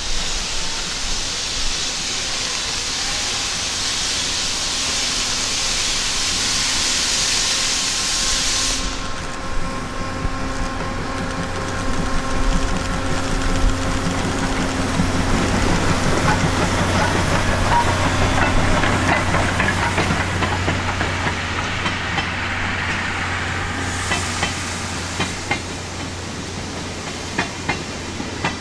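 D51 498, a 2-8-2 steam locomotive, starting away: a loud hiss of steam from its open cylinder drain cocks for about the first nine seconds, then the rhythmic working of its exhaust and running gear as it passes. Near the end the passenger coaches' wheels click over the rail joints.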